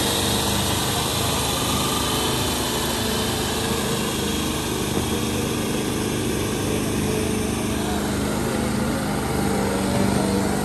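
Tractor engine running steadily, a continuous hum with no change in pitch or level.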